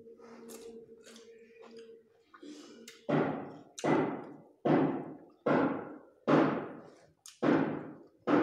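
A person gulping water from a glass: seven loud, thudding gulps in a row, about one a second, starting a few seconds in.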